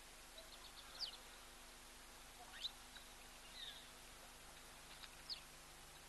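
Several brief, high bird chirps over faint, steady background hiss, the loudest about a second in and about two and a half seconds in.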